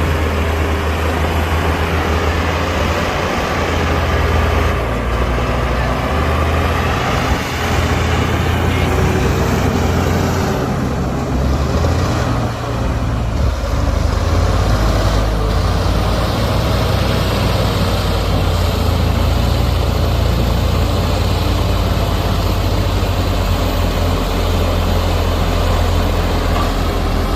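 Heavy diesel earthmoving machinery running steadily under load, with the engine pitch rising and falling slightly as the machines work soil.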